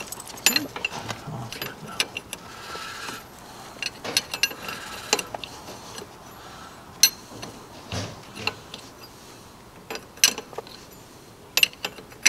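Socket ratchet wrench clicking and steel tools clinking against the hydraulic fittings of a tractor's top link cylinder, in scattered sharp clicks and ticks.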